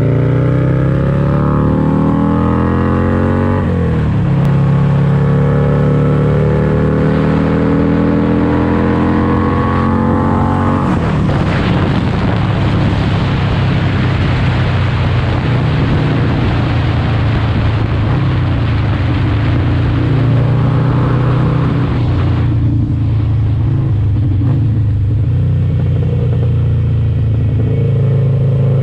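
Motorcycle engine running under way, heard from the rider's seat: its pitch climbs, drops about four seconds in as it shifts, then climbs again. From about eleven seconds a heavy wind rush covers the higher sound for some ten seconds before falling away, leaving the steady low engine note.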